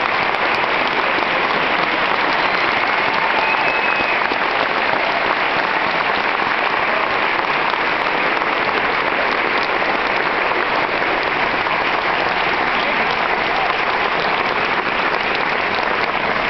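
Audience applauding steadily: a long, dense round of clapping from a full room that keeps up without letting off.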